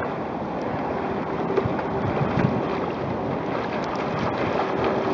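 Wind buffeting the microphone over the wash of choppy river water, with a faint steady hum running through most of it.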